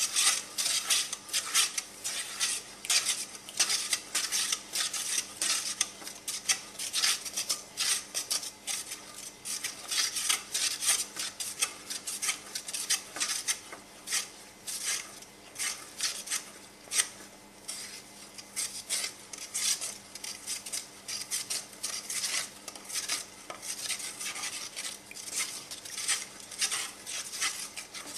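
Wooden spoon stirring liquid in a steel pan, scraping and knocking against the sides and bottom in quick, irregular strokes, several a second.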